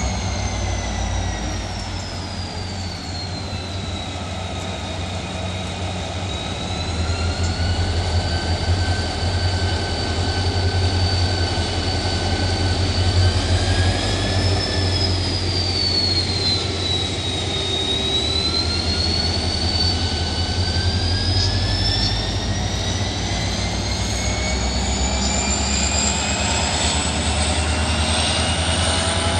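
Korail diesel locomotive running with a deep steady engine rumble under a high whine. The whine dips and rises, then climbs steadily in pitch through the second half.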